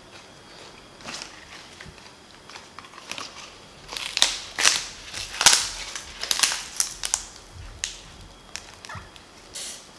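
Raw green onion stalks crackling and snapping as they are handled and torn apart, a run of crisp sharp cracks, densest and loudest from about four to seven seconds in.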